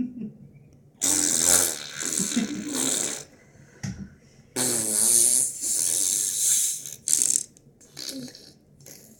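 A child making fart noises, two long spluttering blasts followed by a few shorter ones.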